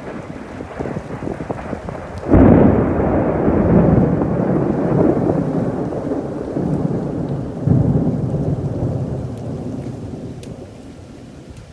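Thunder: a sudden loud clap about two seconds in, then a long rolling rumble that swells again near the eighth second and slowly fades.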